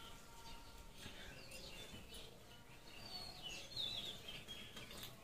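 Faint bird chirps over low background noise, as a few short, high calls about three to four seconds in.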